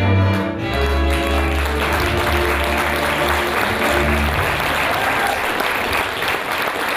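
A folk string band of cimbalom, violins and double bass plays the closing bars of a dance tune, and audience applause swells from about a second in. The music ends around four seconds in, leaving the applause.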